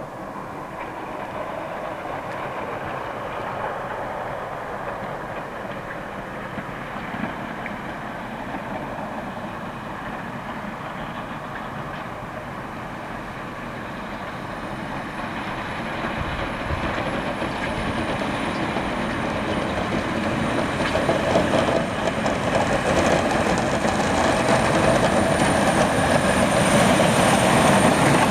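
Western Star snow plow truck running and plowing, a steady rumble and scraping rattle that grows steadily louder as it comes closer, with a thin high whine joining about halfway through.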